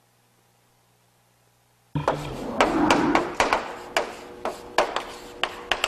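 Near silence for about two seconds, then chalk writing on a blackboard: sharp chalk taps about three a second over scratchy strokes, loudest just after it begins.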